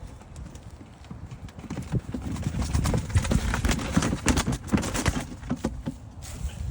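Racing pigeons' wings flapping and clapping as birds are let out of a carrier, a dense run of irregular sharp knocks and flutters that thickens about two seconds in.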